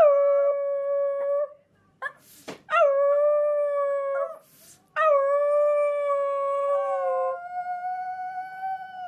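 A dog howling: three long, steady howls, the last the longest, with short breaths between them.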